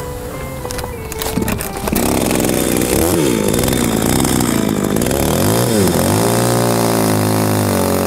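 A two-stroke petrol chainsaw is throttled up about two seconds in and saws into a block of ice. Its engine pitch dips and recovers several times as the chain bites into the cut.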